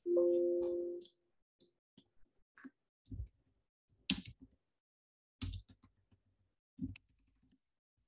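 Sparse keystrokes on a computer keyboard: short scattered clicks at uneven gaps, a word being typed slowly. It opens with a brief steady tone that fades out within the first second.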